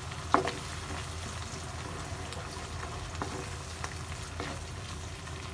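Eggs, canned tuna and onions sizzling in hot oil in a frying pan while a wooden spatula stirs and scrapes through them, knocking lightly against the pan a few times, loudest about half a second in.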